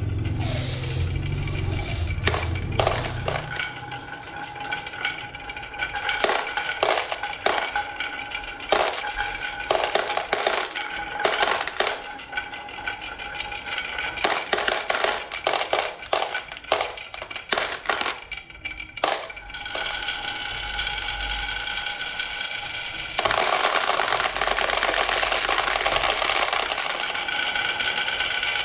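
Marbles running down a wooden HABA marble run: many sharp clicks and clacks as they drop and strike the track. Near the end this becomes a dense, continuous rolling rattle.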